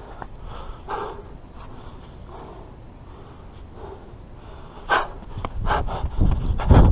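A man breathing hard, catching his breath after a sprint, the puffs close on a body-worn camera mic. About five seconds in there is a sharp knock, then quick, louder footsteps on the track as he starts running again.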